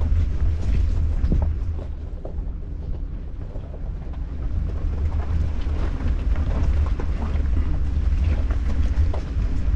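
Open-top Jeep moving slowly along a rocky mountain trail: a low rumble of wind buffeting the roof-mounted camera's microphones mixed with vehicle noise, with scattered clicks and knocks. The rumble eases for a couple of seconds about two seconds in.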